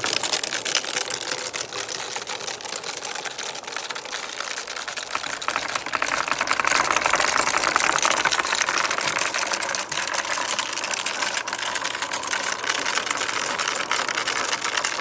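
Balls rolling and clattering down a marble run, a dense stream of rapid clicks and rattles that grows louder for a few seconds midway.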